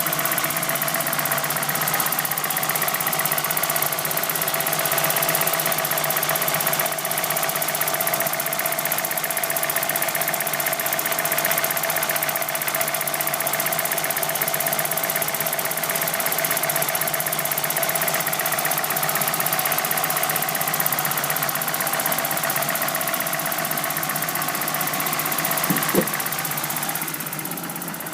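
BMW E30 325i's straight-six engine running steadily, with the abnormal noise its owner is demonstrating; a sharp click sounds near the end and the level then drops.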